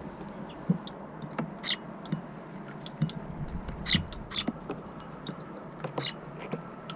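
Eurasian tree sparrows giving short, scattered chirps over a steady rush of wind, with soft taps in between.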